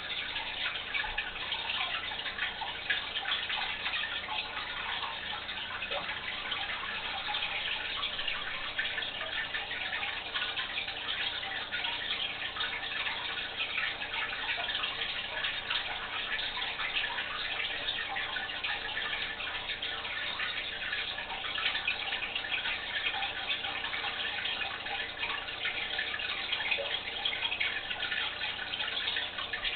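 Aquarium water splashing and bubbling steadily, a dense crackle of small drips.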